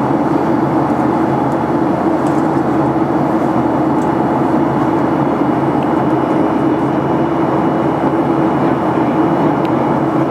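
Cabin noise of a Boeing 737-800 in flight: its CFM56-7B turbofan engines and the rushing airflow, a steady drone with a strong low hum.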